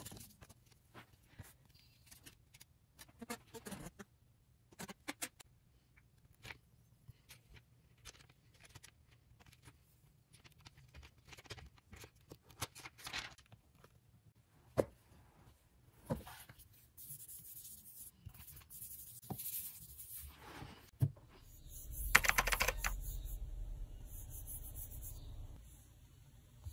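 Hands handling the paper cards and thin plastic sheet of an iPad screen protector kit: scattered light taps and clicks, then a few seconds of denser scraping and rustling from about halfway through, with one louder rustle about three quarters in. A low steady hum comes in near the end.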